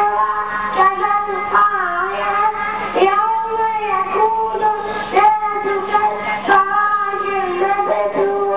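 A young child singing into a microphone, holding long notes that bend and slide between pitches.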